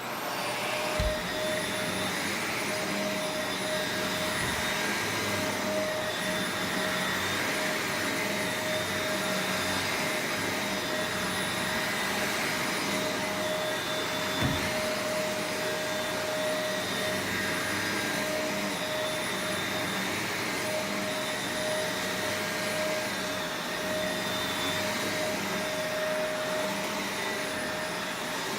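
Shark Rotator Professional Lift Away upright vacuum cleaner switching on and running steadily: a motor whine over a rushing hiss that swells and fades about every two seconds. Two short low thumps, about a second in and about halfway through.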